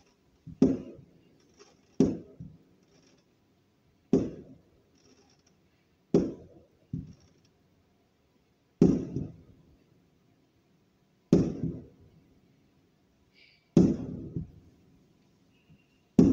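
Aerial firework shells bursting: about eight sharp booms roughly two seconds apart, each fading out over about a second, with one smaller bang in between.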